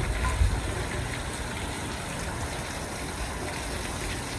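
Steady rushing noise of a storm, wind and rain, with low wind buffets on the microphone about half a second in.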